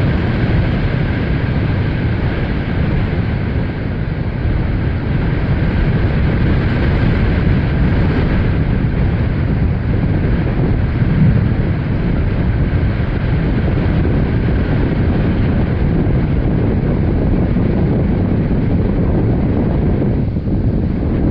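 Storm wind blowing hard across the microphone: loud, steady wind noise with a low rumble.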